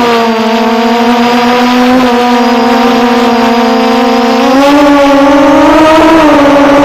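Engine of a small off-road vehicle running at a steady high pitch, then rising and wavering in pitch about four and a half seconds in as it speeds up over rough grass.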